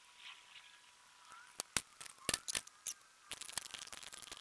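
Irregular sharp metallic clinks and taps, starting about a second and a half in, of a steel chain being handled and shifted.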